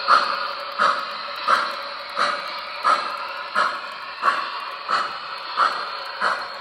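MTH Rail King steam locomotive No. 7052's Proto-Sound 3.0 sound system playing an even steam chuff, about one chuff every 0.7 seconds, over a steady hiss as the O-scale train runs.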